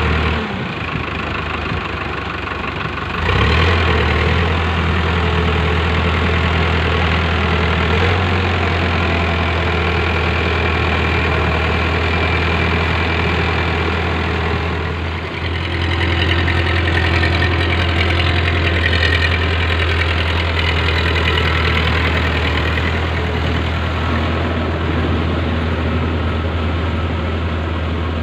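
Powertrac Euro 55 tractor's diesel engine running steadily under load while its rotavator churns through wet paddy mud. It gets louder about three seconds in and again around fifteen seconds.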